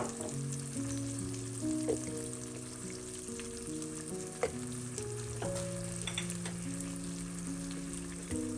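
Soy-based sauce with onions sizzling steadily in a frying pan on a gas hob, with a few sharp clicks, the loudest at the very start. Soft background music with held notes plays underneath.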